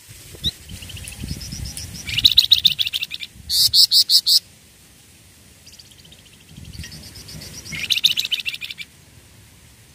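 Young flamboyan (ferruginous babbler) singing. It gives two phrases of rapid, high chirping trills. The first ends in a short run of loud, clear notes about four seconds in, and the second comes near the end.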